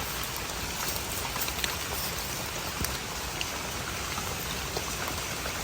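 Steady rain falling, an even hiss with a few scattered light drip taps.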